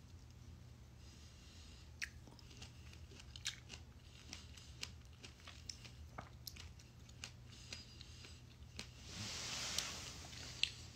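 Close mouth sounds of someone chewing a fresh strawberry: soft, irregular wet clicks and smacks. A brief rustle of movement near the end.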